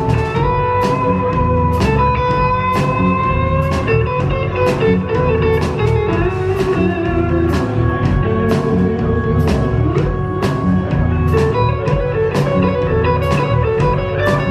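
Live blues-rock band playing an instrumental break: an electric lead guitar holds long notes that bend slightly in pitch, over bass and drums with steady cymbal strikes about twice a second.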